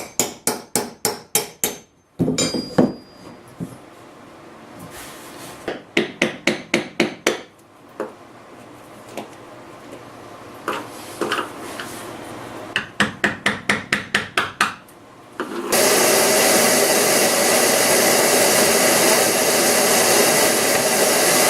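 Three quick runs of hammer blows on wood, about four or five strikes a second. About three quarters of the way through, a loud steady power-tool noise starts and runs on.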